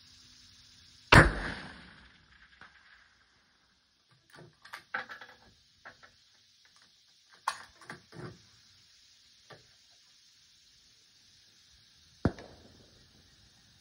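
Two 6mm ARC rifle shots about eleven seconds apart, each with a short echoing tail, the first much louder. Between them, a scatter of light clicks and knocks.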